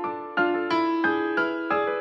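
Background piano music: notes struck about three times a second, each ringing on and fading.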